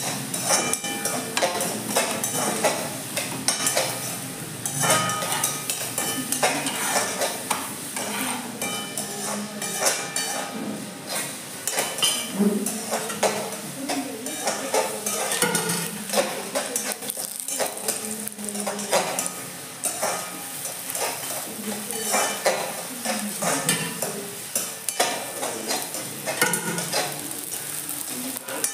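A metal spoon stirring and scraping vegetables frying in a steel kadai, with frequent irregular clicks and scrapes of metal on metal over a steady sizzle, and now and then a short clink of steel utensils or plates.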